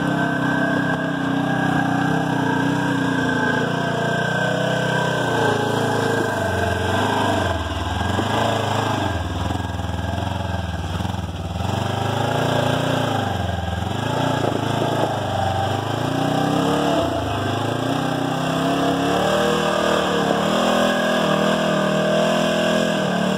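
Polaris General 1000 side-by-side's engine revving up and dropping back again and again as it crawls over rock ledges, with a steady high whine underneath.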